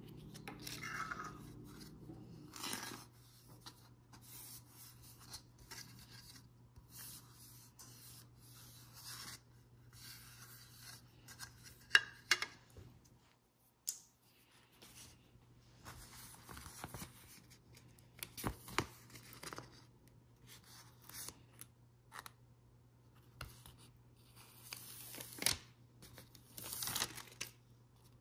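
Clear adhesive contact paper being handled and peeled from its backing, with on-and-off crinkling and rustling of the plastic film and a few sharp clicks.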